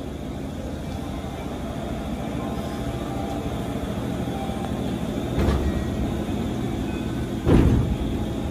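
Steady low rumble of a train running, with two dull thumps about two seconds apart in the second half, the second louder.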